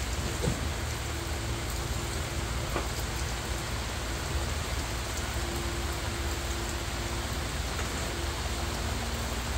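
Steady rain falling, an even dense hiss, with a low steady hum underneath.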